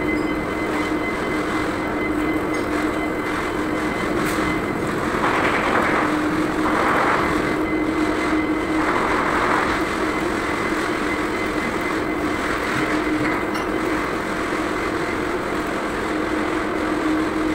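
Electric arc welding on a steel pipe-to-flange joint: a steady hiss from the arc over a constant hum, swelling a little louder a few times near the middle.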